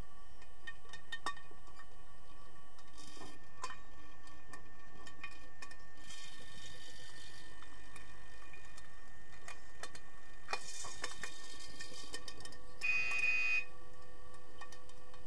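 Underwater sound of a pool during an underwater hockey game, heard through a submerged camera: a faint steady hum, scattered clicks and ticks, and a few hissing bursts. Near the end comes a short buzzing tone lasting about half a second, the loudest sound.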